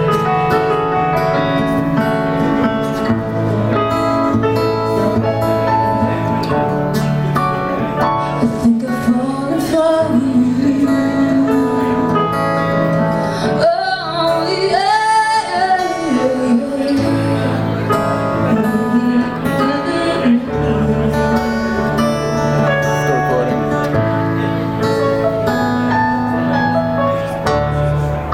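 A live song played on acoustic guitar and keyboard, with held chords and a moving bass line; a singer's voice glides through the middle of the passage.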